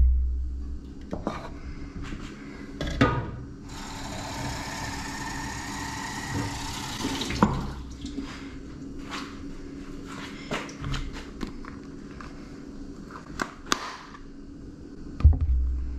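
Clear plastic blender jug of chopped tomatoes handled on a wooden cutting board: scattered clunks and knocks, a heavy thud at the start and another near the end. In the middle comes about four seconds of a steady rush of liquid pouring into the jug.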